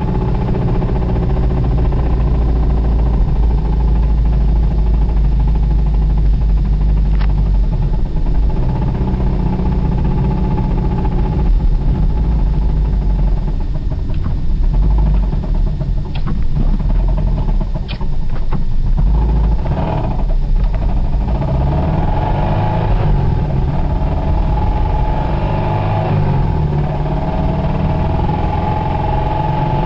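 1991 Toyota Celica ST's four-cylinder engine running with the knock of a badly worn connecting-rod bearing, one close to letting the rod go.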